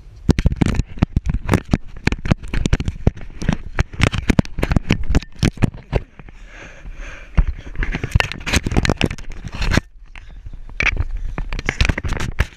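Rapid knocking, scratching and scraping right on an action camera's housing as a puppy noses and paws at it, with a couple of short lulls.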